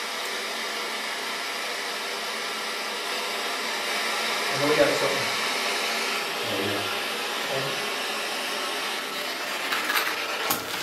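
Steady static hiss from a ghost-box device used to let spirits speak, with a few short voice-like fragments in the middle and some clicks near the end.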